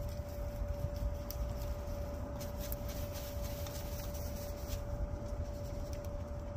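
Hens dust bathing in dry dirt: faint scratching and rustling in the soil with a few light clicks, over a steady hum and a low rumble.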